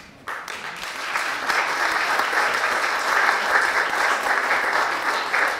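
Audience applauding: a roomful of people clapping, breaking out suddenly in the first moment and keeping up a steady level.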